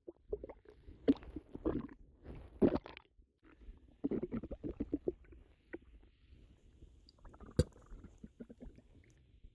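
Human stomach gurgling and rumbling in irregular bursts of bubbly squelches, the sound of a bloated, upset stomach, with one sharp click about three-quarters of the way through.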